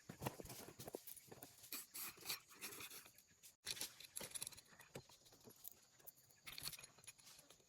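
Faint, scattered clicks, scrapes and rustles of hand work on the diesel engine, as tools and small metal parts are handled; the engine is not running.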